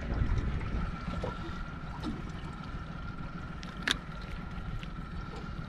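Wind and water lapping around a small aluminium boat drifting at sea, a low steady rumble. A faint steady high whine runs through it, with a single sharp click about four seconds in.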